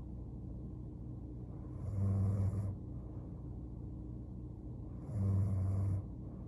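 A sleeping woman snoring: two low snores about three seconds apart, each lasting just under a second, over a steady low hum.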